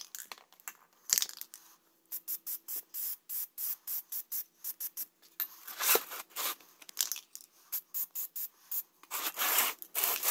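Aerosol can of Plasti Dip rubber coating spraying in quick hissing bursts, about five a second, with longer sprays about six seconds in and near the end. The audio is sped up three times, so the bursts come short and clipped.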